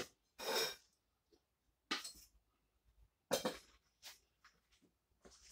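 A steel mixing bowl and metal slotted spoon handled: about four short clatters and scrapes of metal on metal, the first a longer scrape just under half a second long.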